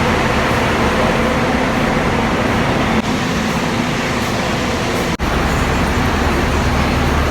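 Steady traffic noise with bus engines running, with a brief break about five seconds in.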